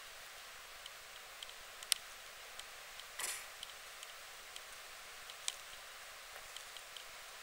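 Quiet handheld camera recording: a steady faint hiss with scattered light ticks, a sharp click just before two seconds in and another about five and a half seconds in, and a brief rustle just after three seconds, typical of camera handling noise.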